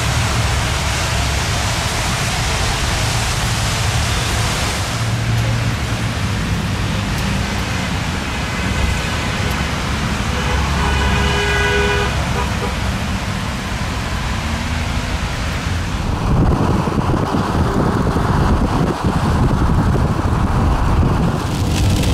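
Car driving along a road: steady tyre and wind noise, with a brief pitched tone about eleven seconds in. Around sixteen seconds in the noise turns deeper and duller.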